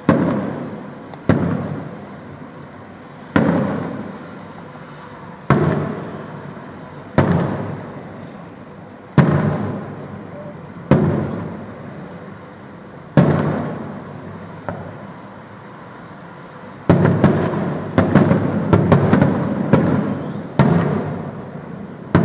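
Aerial firework shells bursting in sharp bangs about every two seconds, each trailing off in a rolling echo. Near the end the bangs come in a rapid volley.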